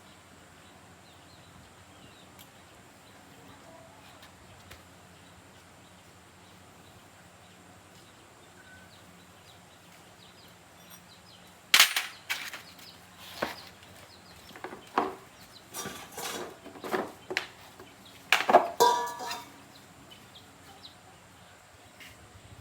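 A low steady background, then about halfway through a run of about a dozen loud, sharp knocks at uneven intervals, lasting some eight seconds.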